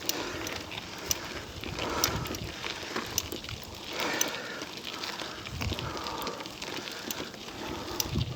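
Bicycle climbing a dirt forest track: tyres crackling and crunching over gravel, with the exhausted rider's heavy breathing swelling every couple of seconds.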